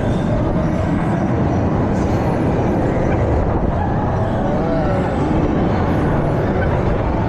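Steady loud rumble of a fairground ride in motion, heard from on board, with faint voices in the background.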